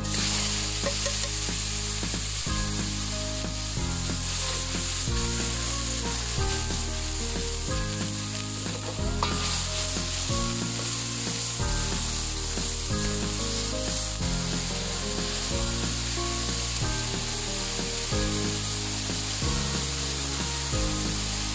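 Diced raw potatoes dropped into hot oil in a wok, setting off a sizzle that starts suddenly and then runs on steadily as they pan-fry on high flame, stirred with a metal ladle.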